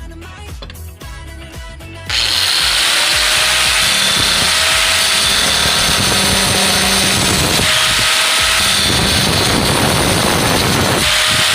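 Background music, then an electric angle grinder switches on abruptly about two seconds in and runs loud and steady, with a high whine over a hissing noise. Its sound changes briefly twice in the second half.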